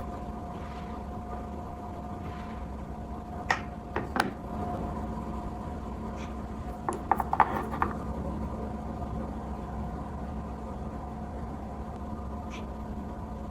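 Small hard objects clicking and tapping: a few separate clicks a third of the way in, a quick cluster of clicks just past the middle and one more near the end, over a steady low hum with a faint whine.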